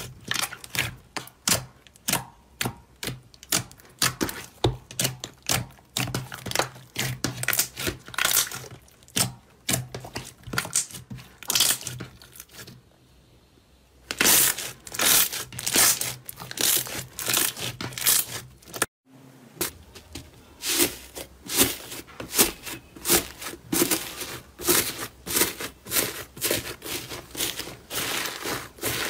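Hands kneading and squeezing sticky slime, giving rapid wet clicks and crackling pops of trapped air. After a short quiet pause about halfway through, the squishing resumes, and a brief break marks a change to another slime studded with foam beads.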